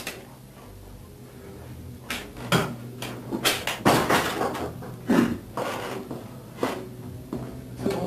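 A string of sharp knocks and clatters in a small room, with a door opening and shutting among them, over a low tape hum.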